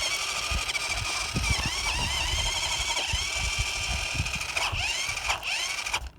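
A radio-controlled car's electric drive motor and gears whining, the pitch dipping and rising again several times with the throttle, then cutting out suddenly near the end as the battery runs flat.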